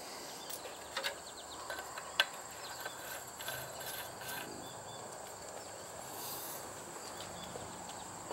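Steady high insect trilling in the background, with a few light metallic clicks as a steel elbow fitting is handled and screwed by hand onto a pipe held in a pipe threader's chuck. The sharpest click comes about two seconds in.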